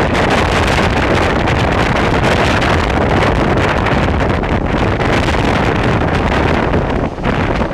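Strong wind buffeting the microphone at the window of a moving steam-hauled train, with the train's own running noise underneath. The noise eases briefly near the end.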